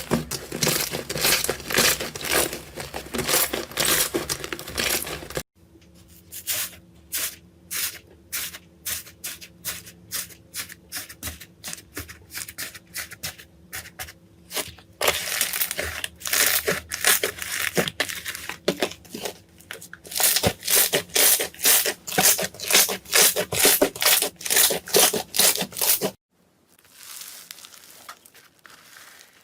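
Slime being squeezed and pressed, giving rapid crackling and popping. The crackle is dense at first, thins to separate clicks after about five seconds, comes thick and rhythmic again about halfway through, and turns quieter near the end.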